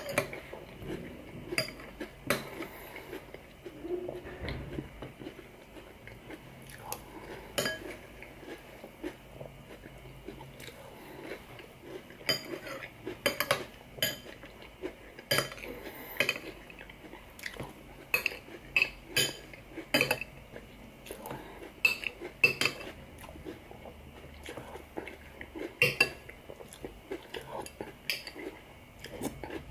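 Metal spoon clinking and scraping irregularly against a ceramic cereal bowl, with crunchy chewing of cereal between spoonfuls.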